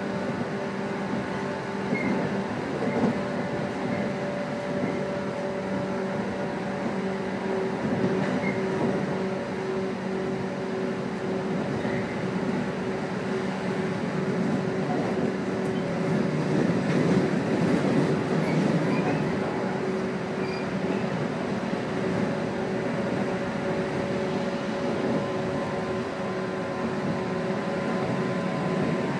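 JR 115 series electric multiple unit heard from inside the car as it runs along: a steady rumble of wheels on rail under a steady humming tone, swelling a little about halfway through.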